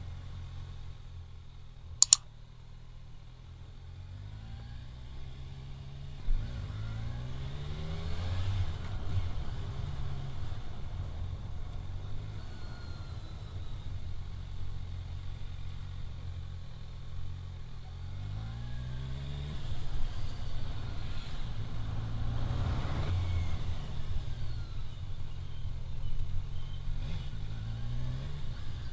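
Motorcycle engine heard from the rider's position, rising in pitch as it speeds up several times, over a steady low rumble of engine and wind. There is a single sharp click about two seconds in.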